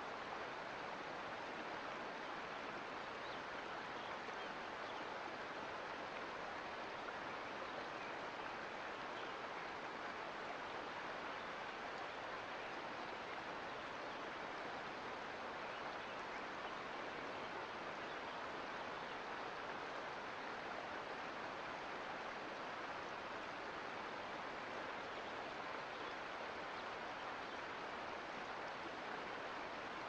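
Mountain creek running: a steady, even rush of water that does not change.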